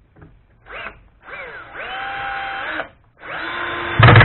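Bosch GSB 1080-2-LI 10.8 V cordless drill driver in first gear driving screws into wood. After a short blip, the motor whirs up with rising pitch and runs steadily, stops, then runs again. Near the end the torque clutch, set low at 4 or 5, ratchets loudly in rapid clicks as the screw seats.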